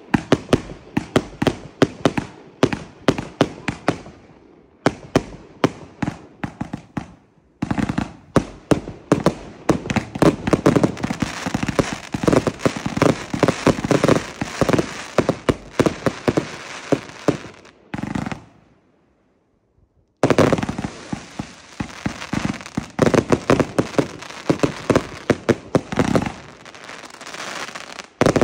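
Funke Paranoid 2 compound firework cake (116 shots, 30 mm) firing in fast volleys: rapid launch thumps and bursts, overlaid with the dense crackle of cracker effects. The firing breaks off for about two seconds two-thirds of the way through, then starts again.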